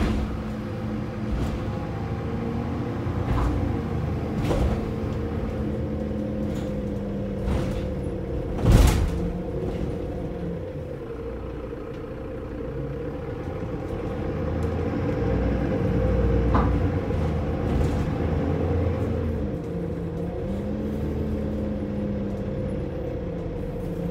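Mercedes-Benz Citaro O530 bus's rear-mounted OM906LA straight-six diesel and ZF automatic gearbox, heard from inside the cabin as the bus travels, with low road rumble. The engine note drops and rises a couple of times, and rattles and knocks from the body come through, the loudest a sharp thump about nine seconds in.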